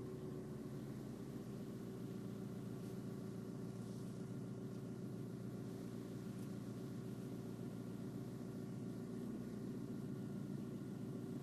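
Dodge Nitro engine idling steadily through an aftermarket stainless steel exhaust, heard inside the closed cabin as an even low drone.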